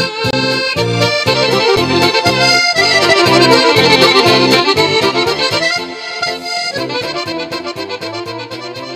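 Accordion music with a steady bass-and-chord beat, dropping in level about six seconds in and then fading out.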